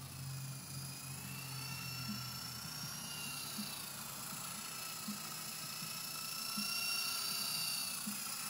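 Small RC helicopter's motor and rotors whining, the pitch wavering up and down as it flies.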